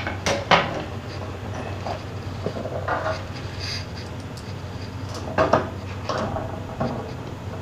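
Small 3D-printed plastic trays and a flat panel being handled on a wooden workbench: scattered light knocks and clicks, a few near the start, one around three seconds in and a cluster past five seconds, over a steady low hum.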